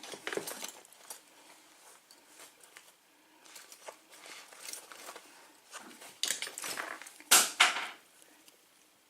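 Small metal parts of a padlock and hand tools being handled: scattered light clicks, scrapes and taps. There are two louder sharp metallic knocks about seven seconds in.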